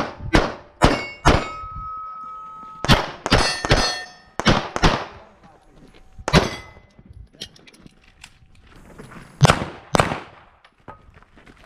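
Pistol shots fired in quick strings, with steel target plates ringing when hit. About a dozen sharp reports come in bunches through the first five seconds, then a lull, then a few more near the end.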